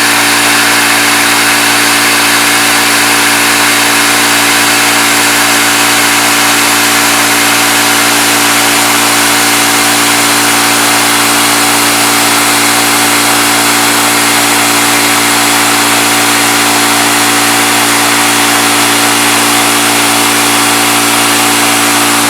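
CNC milling machine running steadily while machining an aluminum part, a constant motor hum under a loud hiss with no change in pitch or level.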